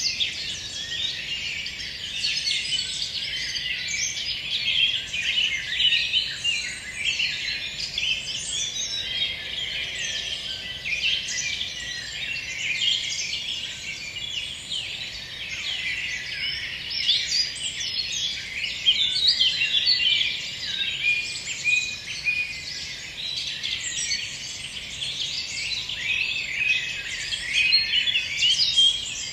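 Songbirds singing in a dense evening chorus, many short chirps and song phrases overlapping continuously.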